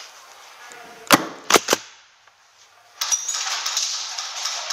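Three sharp airsoft shots about a second in, the last two close together, followed from about three seconds in by a steady hissing noise.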